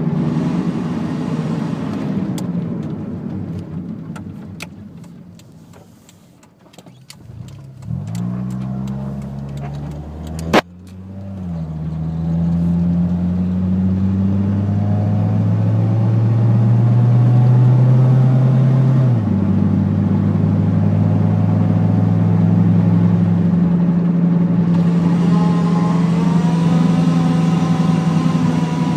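A 1995 Honda Civic DX's four-cylinder engine running. Its note dies away to a low point, then builds back up after a sharp click about ten seconds in and holds steady, dropping suddenly in pitch twice near the end.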